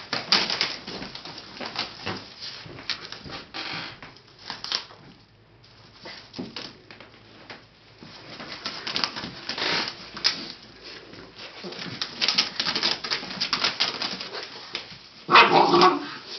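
English Shepherd puppy chewing on a wicker basket: irregular clicking and crackling of the wicker, with a louder burst near the end.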